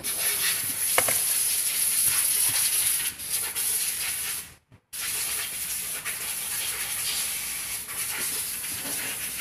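A steady high hiss with a sharp knock about a second in and light knocks and rubbing as the LCD TV panel is handled; the hiss cuts off briefly near the middle.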